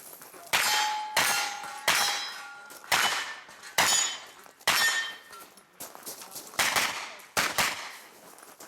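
Pistol-caliber carbine firing at steel targets: about nine shots, roughly one a second with a short pause in the middle. Each is followed by the clang and brief ring of a hit steel plate.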